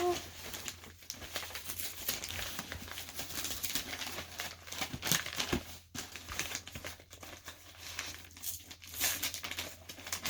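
Packing material crinkling and rustling in irregular bursts as a book is lifted out of a shipping box.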